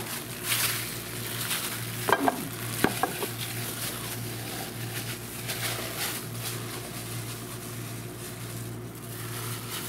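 Plastic-gloved hands scraping and squishing sticky raw meatloaf mixture out of a plastic mixing bowl, a continuous wet, noisy scraping with a steady low hum beneath.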